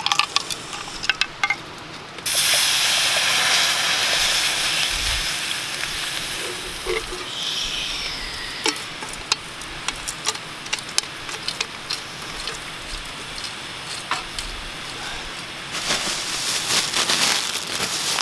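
Food sizzling in a hot pan: the hiss starts suddenly about two seconds in, as if something was laid into hot fat, and slowly dies down, with scattered crackles and a flurry of clicks near the end.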